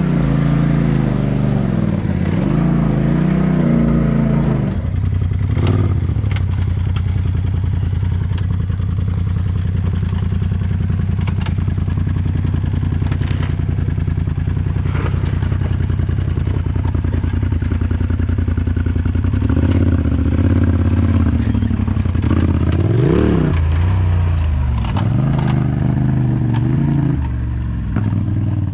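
Side-by-side UTV engine revving with a wandering pitch, then from about five seconds in a steadier low engine run as a tube-chassis buggy crawls over rock ledges. The tyres and chassis give scattered scrapes and clicks on the rock, and the engine revs up and down once near the end.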